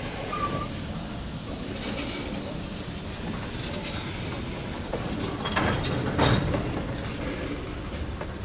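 Railway flatcars rolling slowly over the rails during shunting, a steady rumble with several sharp metallic knocks clustered a little past the middle, the loudest about six seconds in.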